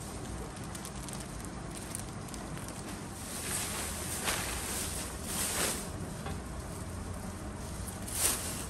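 Plastic wrapping rustling and crinkling as it is pulled off a flat-screen TV. There are several short bursts in the middle and a louder crinkle near the end, over a steady low hum.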